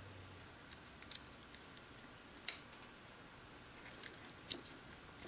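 Faint, scattered clicks and taps of a 9-volt battery being fumbled onto its snap connector in a small plastic camera housing, the sharpest click about two and a half seconds in.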